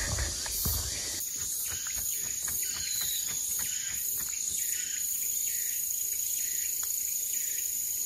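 Summer insects shrilling in the forest canopy: a high-pitched chorus that pulses at first and settles into a steady whine about a second in, over a soft hiss.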